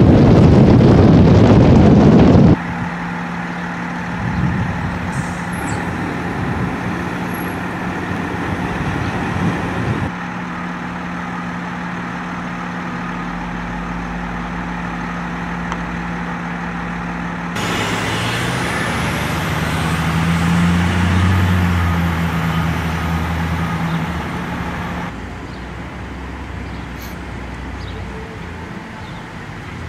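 Vehicle engines idling: a steady low hum that changes abruptly several times, with wind buffeting the microphone for the first couple of seconds.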